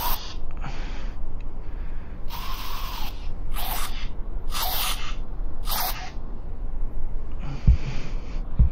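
Spray-paint hiss of the Oculus Medium paint tool, in about seven short bursts of half a second or less with one longer spray between two and three seconds in. Two low thumps near the end.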